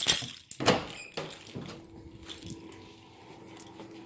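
A door being unlocked and opened: several sharp metallic clacks from the lock and handle in the first second and a half, then a steady low hum.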